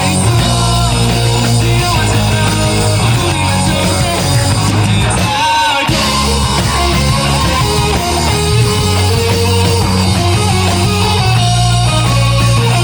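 Live rock band playing: electric guitars, bass and drum kit at full volume, with a melodic line moving over them. The bass and drums drop out briefly about five and a half seconds in, then come back.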